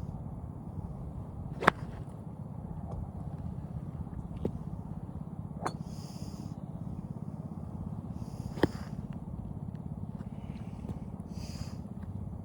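Golf club striking a ball twice, two sharp cracks about seven seconds apart, with fainter clicks between, over a steady low rumble.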